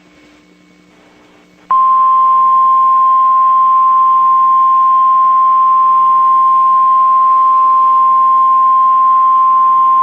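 NOAA Weather Radio 1050 Hz warning alarm tone: a single loud, steady tone that comes on sharply a little under two seconds in and holds without change, the attention signal that a warning message follows.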